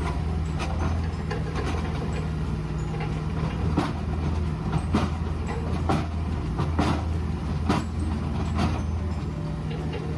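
Mini excavator's diesel engine running steadily, with a series of sharp knocks about once a second in the middle.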